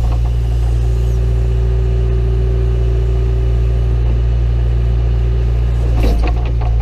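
John Deere 310E backhoe's diesel engine running steadily, with a short clatter of knocks about six seconds in.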